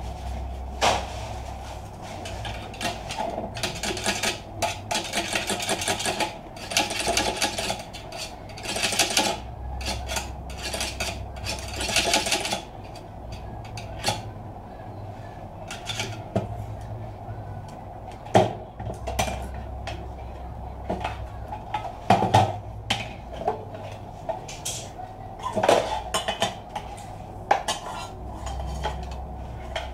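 Metal clinking and rattling as a desktop computer power supply is taken apart: the steel case, the screwdriver and loose screws knock against each other and the bench. There is a dense stretch of quick rattling in the first half, then separate sharp clinks.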